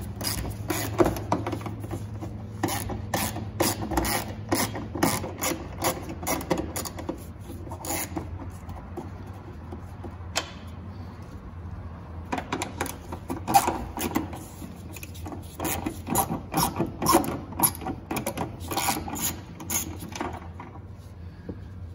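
Hand ratchet with an 8 mm socket on an extension clicking rapidly as it backs out the two bolts holding a tail light housing. The clicks come in two long runs with a pause of a few seconds between them.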